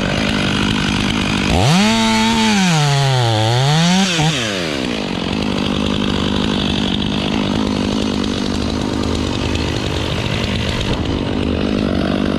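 Chainsaw running at high revs, cutting black locust hardwood. About a second and a half in, its pitch sags to about half and climbs back as the engine bogs under the cut, then it runs steady again.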